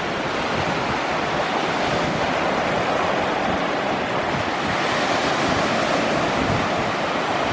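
Gulf of Mexico surf washing over the shore at the water's edge, a steady rushing wash that swells gently, with some wind on the microphone.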